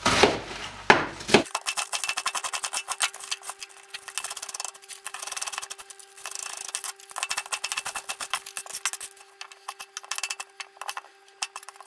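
Kitchen knife chopping white cabbage on a cutting board: quick strokes, several a second, in runs with short breaks, turning to slicing a tomato near the end. A faint steady hum sits underneath.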